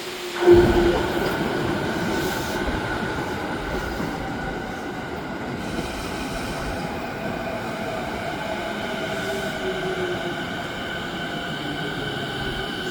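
A JR 209 series electric commuter train running past close by. It comes in loudly about half a second in, then a steady rumble of wheels on rail continues with high, steady squealing tones over it.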